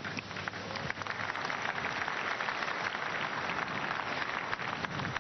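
A congregation applauding, the clapping swelling about a second in and then holding steady.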